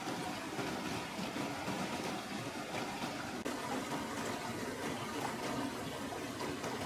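Steady rush of flowing river water, with faint wet clicks of fingers working through the flesh of an opened freshwater mussel.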